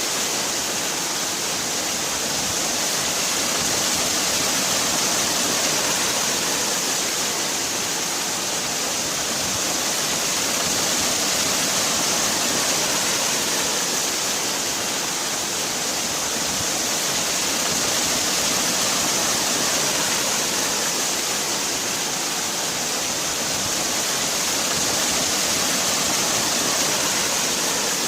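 Waterfall: a steady rush of falling water, a dense hiss heaviest in the high range, swelling and easing slightly every few seconds.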